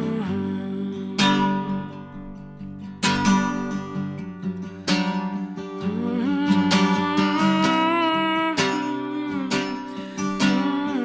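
Acoustic guitar strumming sustained chords in a folk-song instrumental break, with a strong strum about every two seconds.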